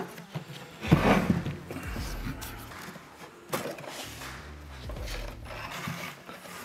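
Knocks and scrapes as the removed plastic heater-box housing is handled and turned over on a wooden workbench, the loudest knock about a second in.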